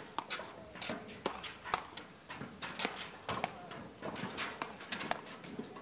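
Platform tennis rally: a string of sharp, irregular knocks from paddles striking the ball and the ball bouncing on the court's aluminum deck, with players' feet on the deck.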